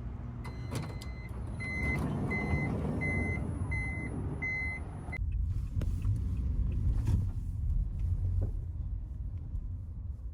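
A motor vehicle runs with a low rumble while an electronic beep repeats about every 0.7 s. The beeping stops about halfway through, and the rumble goes on.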